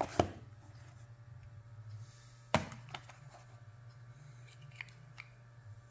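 Cardboard earbud box and paper packaging being opened and handled. Two sharp knocks come about two and a half seconds apart, followed by a few lighter clicks and rustles, over a low steady hum.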